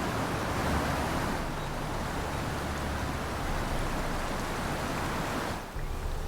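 Fast-moving floodwater rushing in a steady noisy wash, cut off abruptly near the end by a different sound with a steady low hum.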